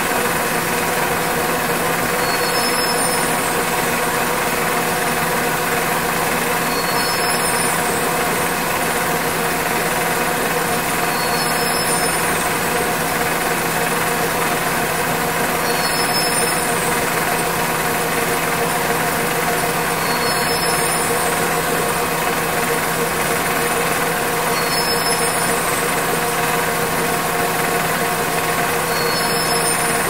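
Hattersley warping machine running steadily: a dense mechanical noise with several held hum tones, and a faint high-pitched pattern that recurs about every four and a half seconds.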